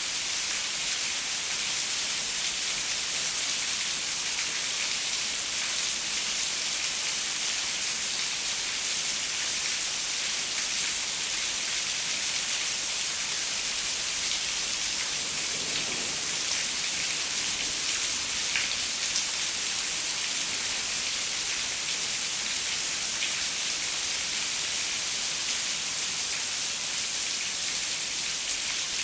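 Steady rain on a window: an even, dense hiss with scattered small ticks of individual drops striking the glass.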